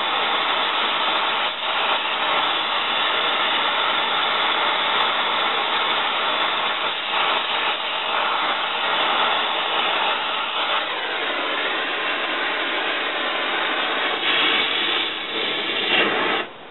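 Oxy-acetylene torch flame hissing steadily while it heats rusted, seized bolts to free them, cutting off abruptly near the end.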